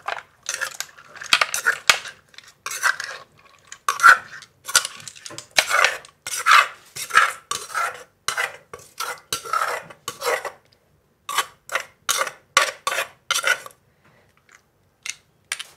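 Utensils clinking and scraping against dishes in a quick, irregular run of strokes, as som tam is dished up for serving. The strokes pause briefly about ten seconds in and die away about three-quarters of the way through, with a couple of last clinks near the end.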